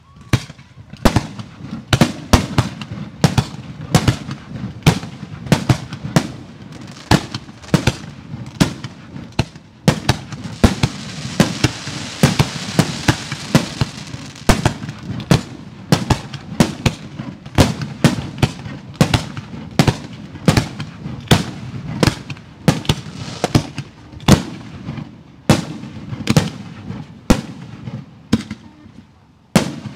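Professional 1.3G display fireworks going off in a rapid barrage, sharp bangs about two a second over a continuous low rumble. There is a stretch of hiss about ten to fourteen seconds in.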